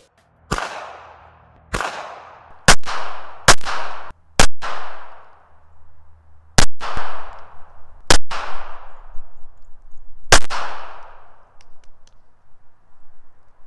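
Eight single gunshots at an uneven pace, each followed by an echo that dies away over about a second.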